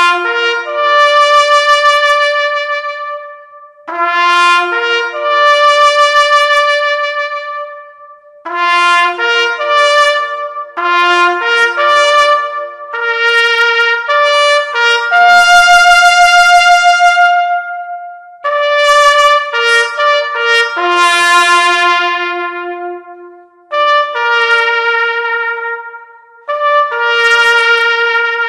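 Solo trumpet playing a slow melody of long held notes, in phrases separated by short pauses.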